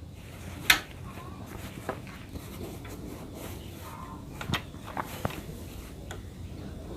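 A few scattered clicks and knocks from handling a sewing machine, over a faint steady background.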